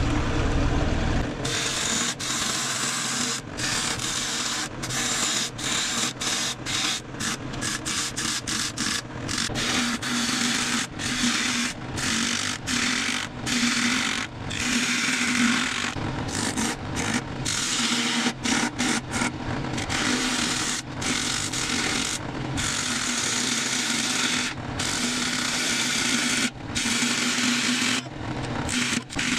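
Bowl gouge cutting a spinning end-grain cherry bowl blank on a wood lathe: a loud, rough scraping of the tool on very hard wood, cut by many brief gaps as the tool comes off the wood, over the lathe's steady low hum.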